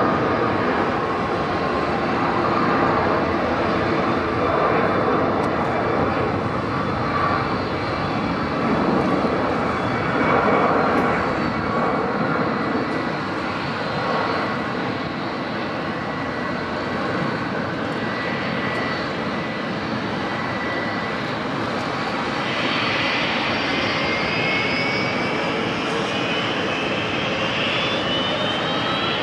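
Four-engine Airbus A340 jet airliner at takeoff power on its takeoff roll: a steady, loud rushing jet noise, with a rising whine coming in over the last several seconds as it rotates.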